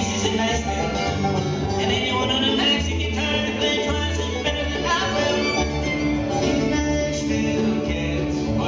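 Bluegrass band playing live: the fiddle leads over acoustic guitar rhythm, banjo and upright bass.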